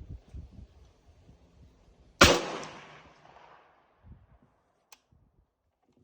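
A single rifle shot from a PSL, a semi-automatic 7.62×54R designated-marksman rifle, about two seconds in, ringing out for about a second and a half. A faint click follows near the end.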